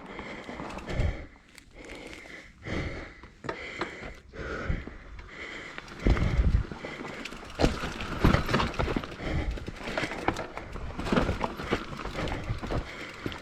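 Mountain bike on a dry, loose, blown-out dirt trail: irregular knocks, rattles and tyre and gravel scrapes, louder and busier from about six seconds in.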